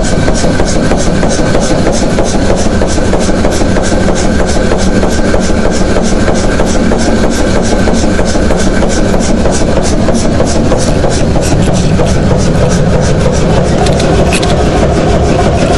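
1969 Hundested two-cylinder, 150 hp hot-bulb engine running while it warms up: a loud, even, rapid beat of firing strokes that holds steady throughout.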